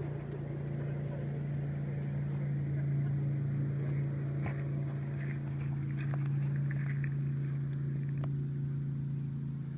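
An engine running at a steady, unchanging pitch, a constant low hum, with a few faint short clicks over it.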